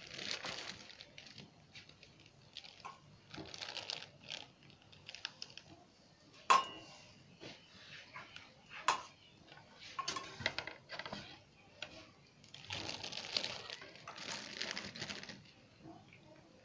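Metal slotted spatula scraping and pressing flatbread on a hot griddle pan, in a few short stretches of scraping. There are sharp taps of metal on the pan, the loudest about six and a half seconds in and another near nine seconds.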